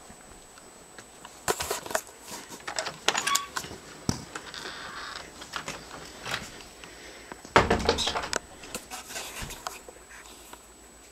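Wooden screen door being opened and footsteps on a wooden floor: scattered knocks, clicks and a brief creak, with the loudest clattering thump about seven and a half seconds in.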